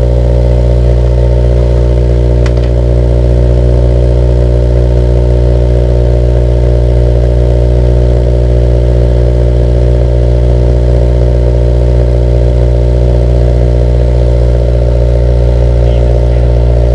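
Honda S2000 engine idling steadily through its newly fitted aftermarket exhaust, with a deep, even drone. A single sharp click comes about two and a half seconds in.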